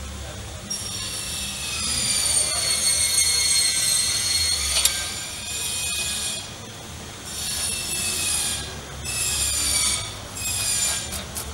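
Power gun spinning an oversized nut down a new rear wheel stud to pull the stud into the hub, a high whine in three bursts that drops a little in pitch as it takes up load.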